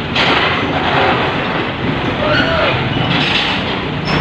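Komatsu PC78US mini excavator's diesel engine running under load as its tracks grind over a truck's loading deck, with a few short metallic squeals about halfway through.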